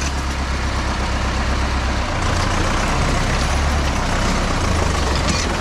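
Farm tractor engine running steadily as the tractor drives through thick bush, heard from close behind; the engine note shifts slightly about two seconds in.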